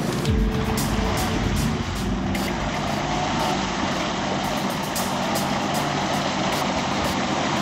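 Off-road 4x4 engine running hard and steadily, with a dense, noisy rumble throughout.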